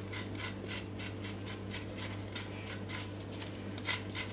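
A knife blade scraping the skin off a fresh ginger root in quick, repeated short strokes, about four a second, over a steady low hum.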